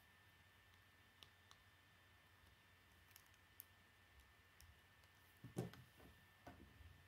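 Faint clicks of plastic Lego bricks as a small assembled Lego car is handled, then a knock about five and a half seconds in as the car is set down on a wooden table.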